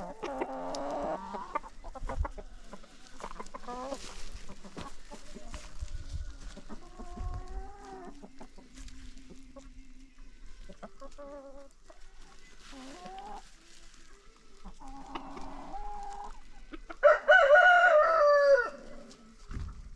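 Free-range chickens clucking on and off, with a rooster crowing loudly once near the end.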